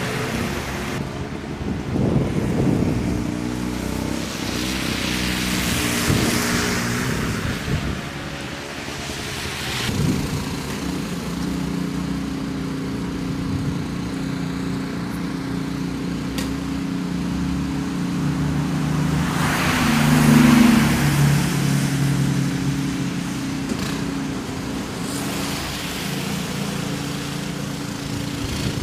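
Small petrol engine of a walk-behind snowblower running steadily. Cars pass on the wet street several times, each a rising and falling hiss.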